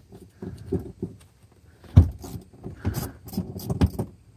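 Handling noise in a car interior: a scattered series of knocks and clicks, the loudest a sharp knock about two seconds in.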